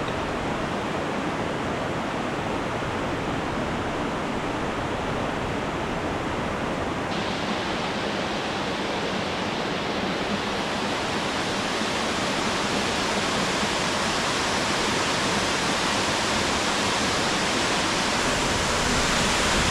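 Cascade Falls, a waterfall on Little Stony Creek, rushing steadily: an even, dense roar of falling water, brighter from about seven seconds in and growing slightly louder toward the end.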